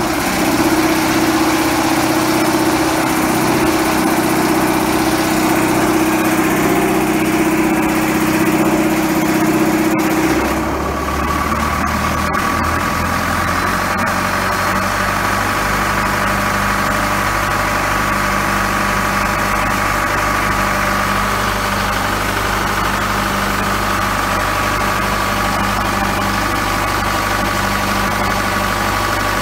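Cummins diesel engine running steadily under load, driving a self-priming rotor pump, with water gushing from the pump's discharge. About ten seconds in the sound shifts to a deeper hum with a steady higher whine.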